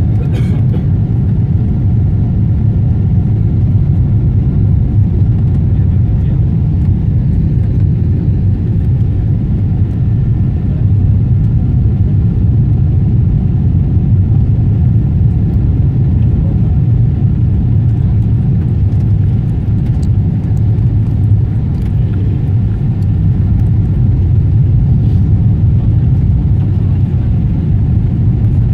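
Cabin noise of a Boeing 777-300ER on approach: a steady, loud low rumble of its engines and the airflow around the airliner, heard from inside the cabin, with a few faint steady tones above it.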